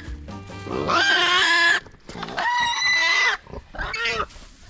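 Young kunekune pig squealing loudly while it is caught and moved: two long, high-pitched squeals and a shorter third one near the end.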